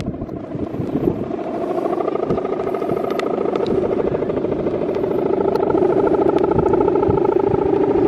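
Droning hum from the bow-hummer (guwangan) of a big Balinese bebean kite in flight: a buzzing tone with several overtones that slowly wavers in pitch and grows louder, stepping up slightly in pitch about halfway through.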